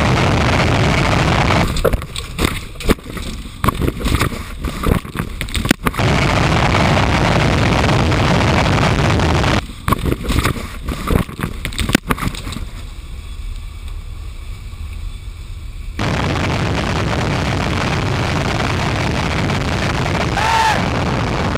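Jet blast from a Boeing 747's engines rushing steadily, broken twice by several seconds of knocks, bangs and buffeting as a car is blown over and tumbles.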